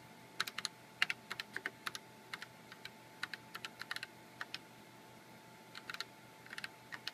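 Typing on a computer keyboard: short clusters of key clicks with brief pauses between words, as a command line is keyed in and entered.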